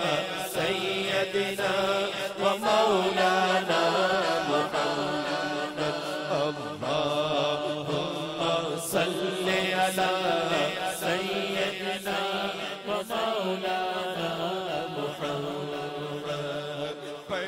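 Durood chanted by men's voices through a PA system: a slow, melismatic line with long held notes, over a steady low drone.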